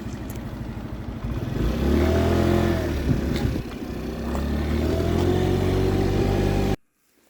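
Baotian Comfort scooter's 50cc GY6-type (139QMB) four-stroke engine idling, then revved twice, cutting off suddenly near the end. The owner says the idle is not good and is hunting a strange noise from the variator side.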